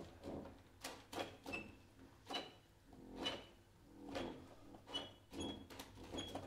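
Sparse, irregular soft clicks and short noisy swishes from a contemporary music performance, roughly one or two a second, some with a brief high tone.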